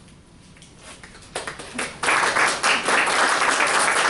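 A small group applauding: a few scattered claps about a second in, then steady applause from about halfway through.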